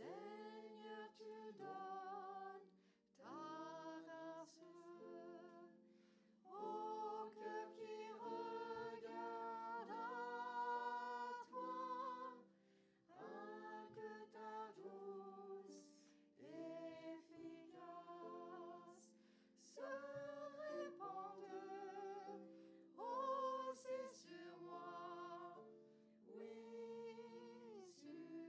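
A man and a woman singing a hymn together in phrases a few seconds long with short breaths between, over a soft instrumental accompaniment.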